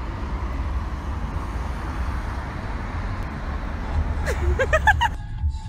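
Steady road-traffic noise, a low rumble under an even hiss. A short burst of voice comes about four seconds in, and music begins just before the end.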